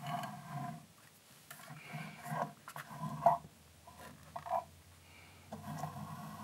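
Small clicks and light scrapes from a plastic model locomotive being handled and turned over in the hands, with one sharper click a little over three seconds in.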